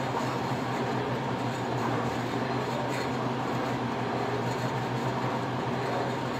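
Steady machine hum with an even hiss, like room air conditioning or café equipment running.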